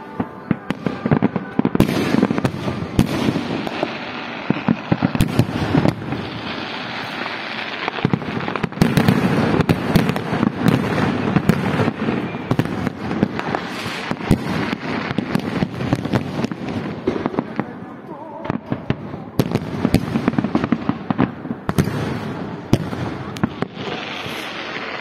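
Fireworks display: aerial shells bursting overhead, many sharp bangs close together over a continuous dense noise.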